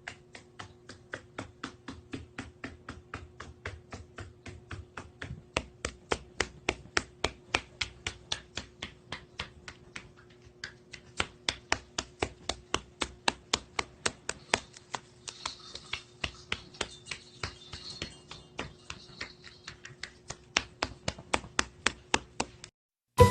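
Sharp, evenly spaced clicking at about three to four clicks a second over a faint steady hum, growing louder partway through.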